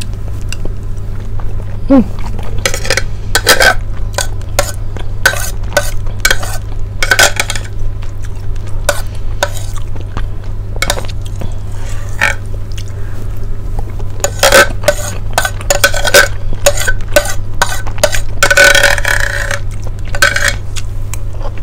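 Eating with a metal spoon from a ceramic plate: irregular spoon clinks and scrapes on the plate and close-up mouth sounds of eating rice porridge, picked up by a clip-on microphone. A steady low hum runs underneath.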